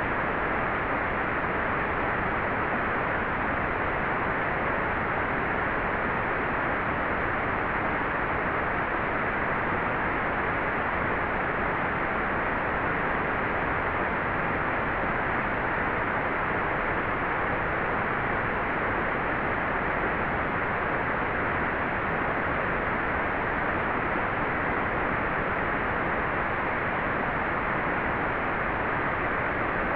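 Hair dryer running steadily, a constant even rush of air with no change in level.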